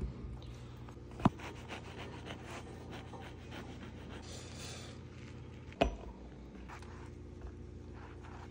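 A knife sawing through a crusty hoagie roll on a wooden cutting board, a steady scratchy rasp. Two sharp knocks on the board come about a second in and again near six seconds.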